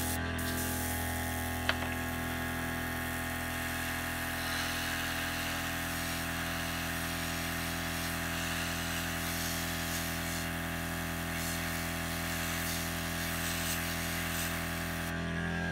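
Airbrush compressor running with a steady motor hum while air and paint hiss out of the airbrush, spraying white through a gill stencil. There is one sharp click about two seconds in, and the spray hiss stops near the end while the compressor keeps running.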